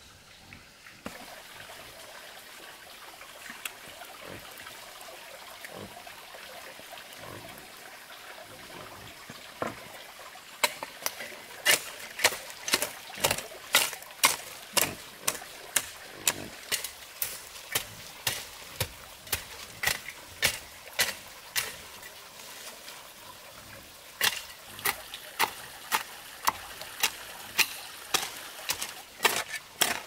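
A faint steady trickle of water, then a rhythmic series of sharp chopping strikes at about two a second, pausing once briefly and resuming.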